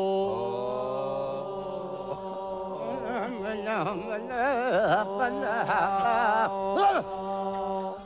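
Several voices chanting a long, held mantra-like hum together. From about three seconds in, wavering, warbling voices join over the steady drone, and the chant breaks off near the end.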